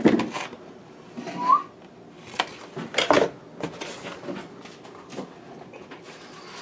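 Cardboard frozen-pizza box handled close to the microphone: a string of knocks and rustles, loudest at the start and about three seconds in. A short rising whistle about a second and a half in.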